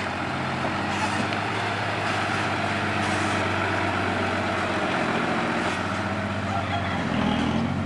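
Diesel engine of a loaded Isuzu six-wheel dump truck running steadily as the truck pulls away past, with a deeper rumble swelling near the end.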